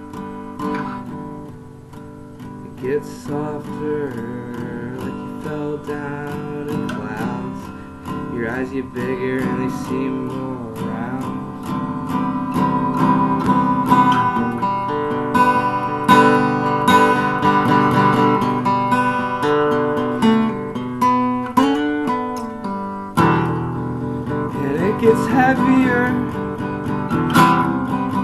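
Acoustic guitar strummed, growing louder about a third of the way in.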